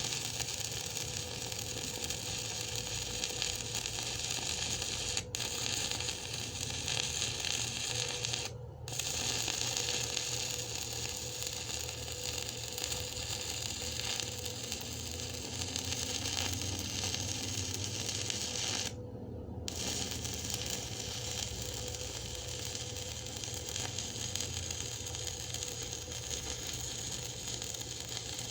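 Stick (shielded metal arc) welding with an E6013 3/32-inch rod on DC electrode positive, the arc running steadily as a bead is laid on quarter-inch steel plate. The arc sound cuts out briefly twice, about a third and about two-thirds of the way through.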